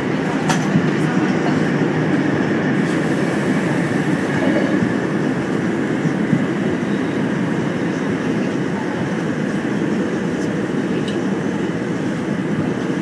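Korail 351000-series electric subway train running at speed through a tunnel, heard inside the car: a steady, loud rumble of wheels on rail, with a few sharp clicks.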